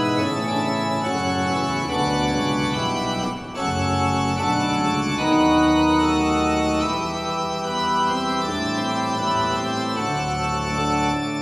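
Background organ music: sustained chords that change every second or two, with a short break about three and a half seconds in.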